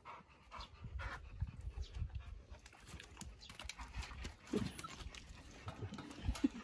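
A dog panting, about two breaths a second, fading after the first second. Soft bumps and rustles of the dogs moving follow.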